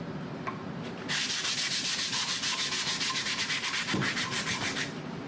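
Hand sanding of a wooden cutting board with sandpaper: quick back-and-forth rubbing strokes that start about a second in and stop near the end. It is a last pass to smooth the board's remaining rough patches.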